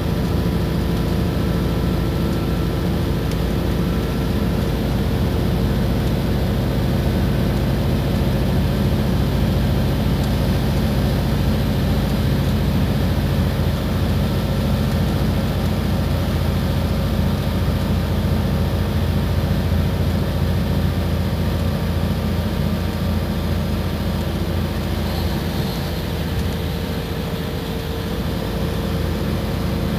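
Iveco Crossway Line bus under way, its engine running with a steady hum over road noise. It eases off a little near the end.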